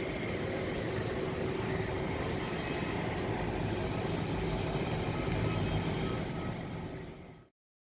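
Steady engine-like rumble with hiss, fading out near the end and cutting to silence.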